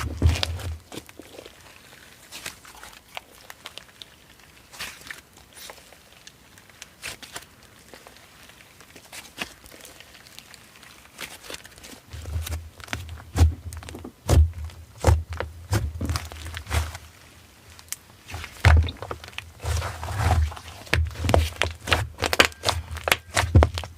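Slime being squished and worked by hand, giving irregular sticky clicks and pops. From about halfway, soft low thumps of handling join in.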